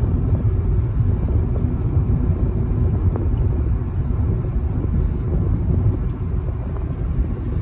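Steady low rumble of a car on the road, heard from inside the cabin.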